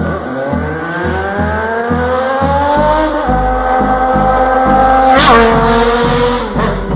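Intro jingle: music with a steady beat, overlaid with an engine-revving sound effect whose pitch climbs and then holds. About five seconds in, a sudden sharp swish makes the pitch jump and then fall.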